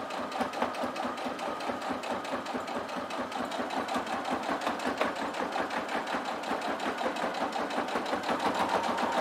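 Electric sewing machine running steadily through a long straight topstitch in layered cotton fabric, with a fast, even needle rhythm that grows a little louder near the end.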